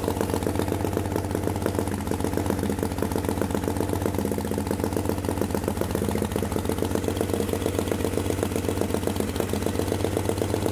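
1937 Harley-Davidson Knucklehead's 61-cubic-inch overhead-valve V-twin idling steadily through its exhaust pipes, shortly after a one-kick start. The mechanic thinks the ignition timing is a little retarded and needs more advance.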